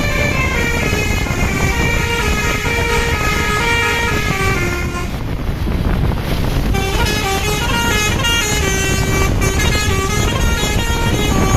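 Basuri multi-tone 'telolet' bus horn playing a melody of short stepped notes over a steady low rumble. The notes pause about halfway through, then resume.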